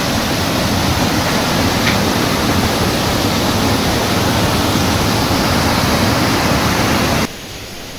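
Water rushing over a river weir: a loud, steady rush of falling water. It drops sharply in level a little before the end.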